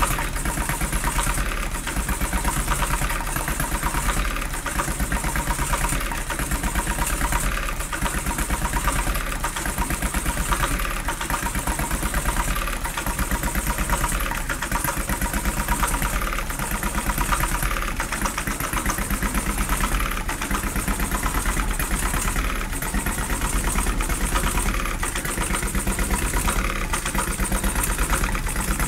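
Home-built model stationary engine running steadily on its first test run, with a rapid, even beat of firing strokes that swells gently in loudness.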